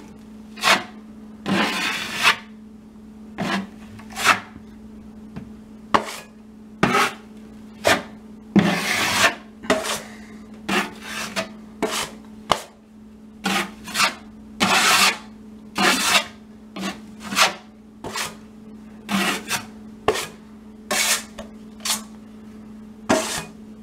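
Drywall knife scraping and smearing joint compound across a ceiling patch in many short strokes at an uneven pace, roughly one a second, laying on a heavy first coat. A steady low hum sits underneath.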